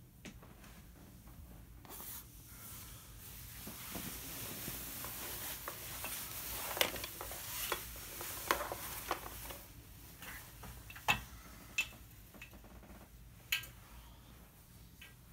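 Rustling with a scatter of sharp clicks and taps: close handling noise of objects and fabric.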